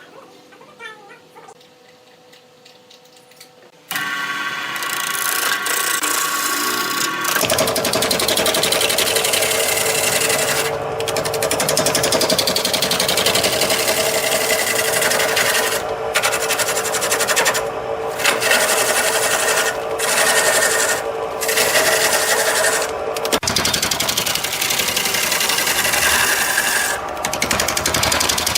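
A wood lathe starts up about four seconds in, then a turning tool cuts the spinning wood in a steady rasping scrape over the motor's hum. The cutting noise breaks off briefly several times.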